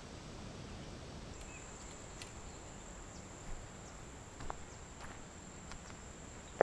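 An insect's steady high-pitched trill begins about a second in and holds on one note over a faint outdoor hiss, with a few soft footsteps crunching on gravel.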